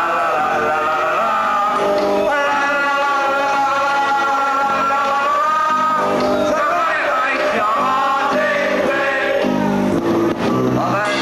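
Live rock-and-roll song: a man singing through a microphone with a band accompanying, holding long notes.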